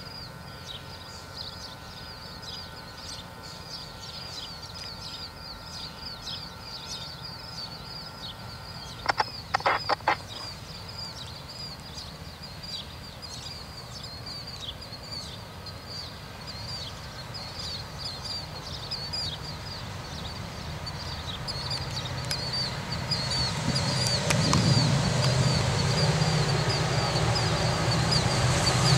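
A bird chirping over and over, with four short sharp sounds close together about nine seconds in. In the last third the low rumble of an approaching diesel freight locomotive grows steadily louder.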